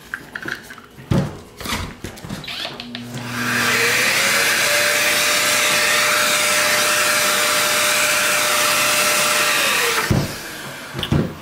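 Round random-orbital sander switched on: after a few handling clicks and knocks, the motor spins up to a steady, loud whir with a rising whine, runs for about six seconds, then winds down.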